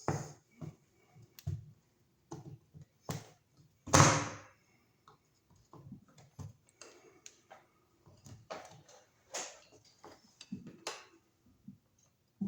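Scattered knocks and clicks of a receptacle, its box and hand tools being handled, the loudest a clatter about four seconds in.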